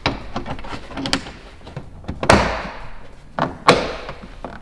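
A car's plastic bumper cover knocking and clicking against its quick-release fasteners as it is worked into place by hand: a handful of sharp knocks with smaller clicks between, the two loudest past the middle.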